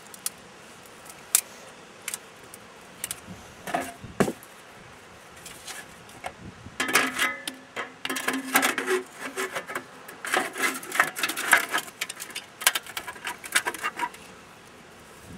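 A few scattered clicks, then from about seven seconds in a dense run of scraping, rustling and light metallic clinks: hands packing padding into the gap around a stainless steel Selkirk SuperVent double-wall chimney pipe where it passes through a concrete wall.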